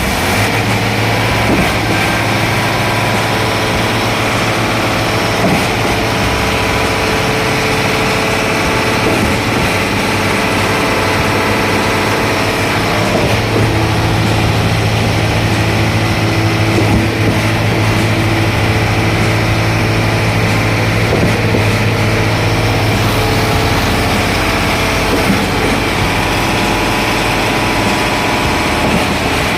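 Concrete pump engine running steadily with a constant low hum.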